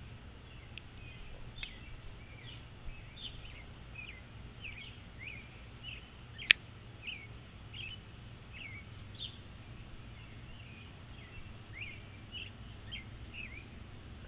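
Small birds chirping over and over in short rising and falling notes, with a steady low hum underneath. A few sharp metallic clicks come from handling a titanium frame-lock folding knife; the loudest is a single snap about six and a half seconds in.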